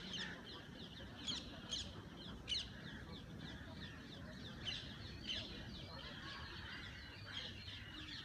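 Many birds chirping and calling: dense, short, high chirps, several a second, over a low background hum.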